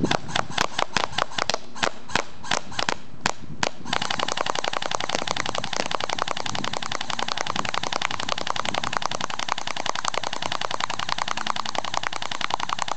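Airsoft guns shooting: quick single shots several times a second, then about four seconds in a long, continuous full-auto burst from an electric airsoft rifle, a fast rattle of shots.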